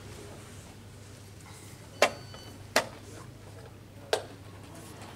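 Wooden chess pieces set down on a board and chess clock buttons pressed in quick rapid play: three sharp knocks, about two, three and four seconds in.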